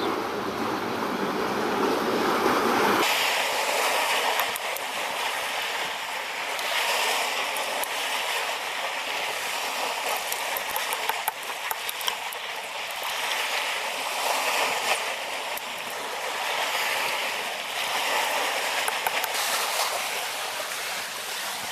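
Sea surf washing against jetty rocks: a steady hiss of water that swells and eases every few seconds.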